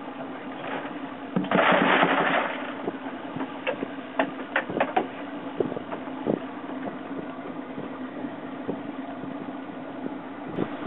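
Fishing boat's engine running steadily under wind and water noise, with a loud rush of noise about two seconds in. A quick series of sharp clicks or knocks follows around four to five seconds in.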